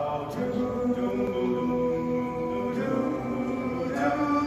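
Male vocal quartet singing a cappella in close harmony, holding long sustained chords without clear words, with a change of chord about three seconds in.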